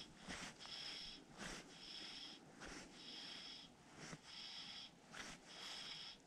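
Fly line being stripped in by hand through the rod guides on a streamer retrieve: a faint, squeaky hiss with each pull, five pulls at an even pace of about one a second.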